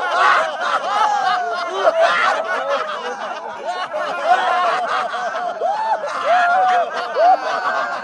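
A group of people laughing together, many laughs overlapping without a break.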